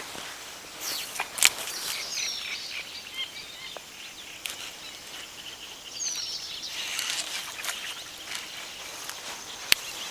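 Rustling and sharp knocks of a hand and jacket sleeve brushing and tapping against a phone's microphone, with two loud clicks, one about a second and a half in and one near the end. A bird gives two short falling calls in the background.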